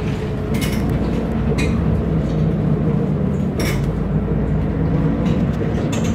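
Running noise inside a moving vehicle in city traffic: a steady low hum, with a few short clicks scattered through it.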